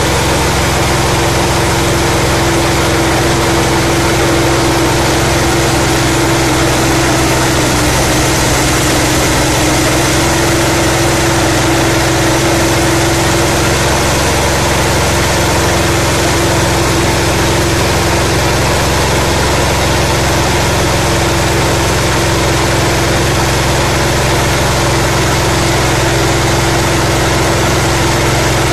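Mini paddy huller running at a steady speed, driven by its small petrol-LPG combo engine: a loud, even engine drone with a constant hum from the milling rotor.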